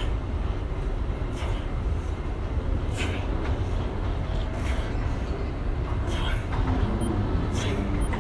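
Steady low rumble of airport terminal background noise, with short hissy sounds recurring every second or so.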